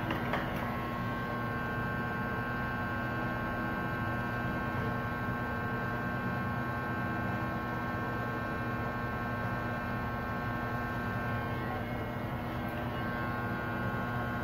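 Electric hair clippers running with a steady buzz while cutting hair.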